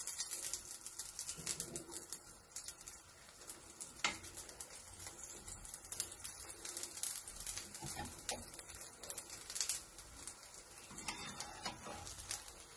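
Rice-and-semolina pancake frying in ghee on a hot pan, a quiet steady sizzle with fine crackles, and a sharper tap about four seconds in.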